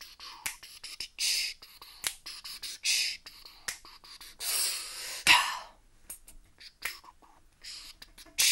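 A person making mouth noises as a mock song: short hissing blows through pursed lips, a longer breathy hiss about halfway through, and scattered clicks and pops between them, in an irregular rhythm.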